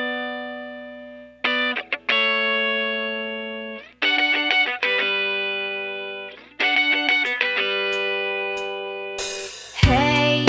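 Background music: slow, sustained guitar chords, each struck and left to fade. Near the end a fuller band section comes in.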